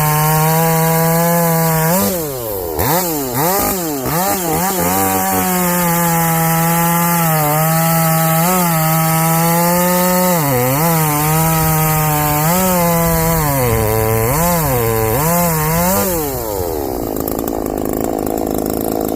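Muffler-modded Portland two-stroke gas chainsaw running at full throttle through an oak log, its engine pitch dipping and recovering as the chain loads up in the cut. There are several quick throttle blips a couple of seconds in. Near the end the throttle is let off and the engine falls to idle.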